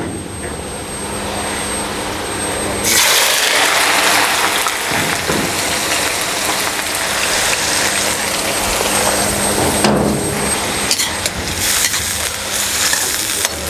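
Sliced bitter gourd going into hot oil in an iron kadhai and deep-frying: a loud, dense sizzle starts suddenly about three seconds in and keeps up steadily. A few metal clinks of a slotted spoon stirring the slices come toward the end.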